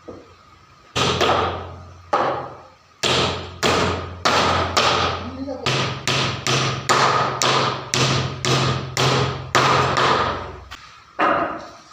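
Repeated hammer blows on wood in a steady run, about two a second, each with a short ringing decay.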